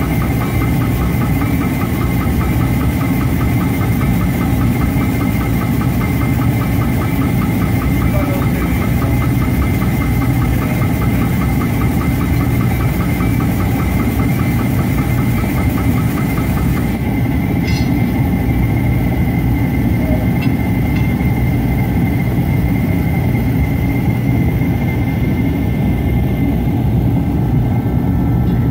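Steady mechanical running like an idling engine, with a fast, even ticking over it that stops about seventeen seconds in.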